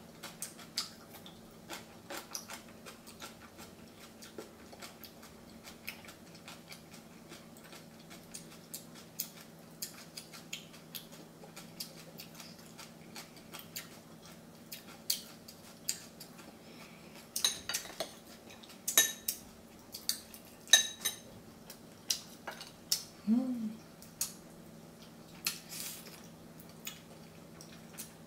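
Spoon clinking and tapping against a ceramic rice bowl and plates during a meal of seasoned crab: many small, sharp clicks scattered throughout, busiest and loudest between about 17 and 21 seconds in, over a faint steady hum.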